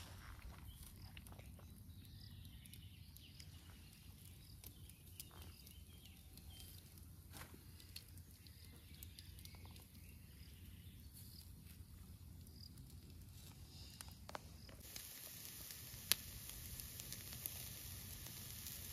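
Chicken kebabs grilling over a charcoal fire: faint soft ticks and crackles from the coals at first, then about fifteen seconds in a close, steady sizzling hiss from the meat over the coals, with one sharp pop a second later.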